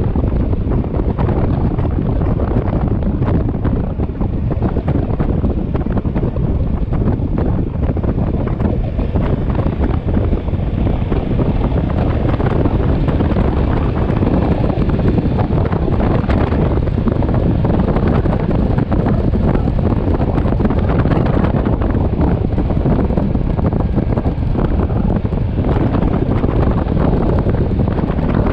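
Loud, steady wind rushing over the microphone of a moving motorcycle, a low rumbling haze with no clear engine note standing out.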